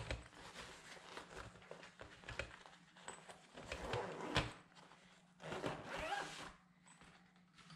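Zipper on a fabric packing bag being drawn along in a couple of short runs, with light knocks and rustles as the bag is handled.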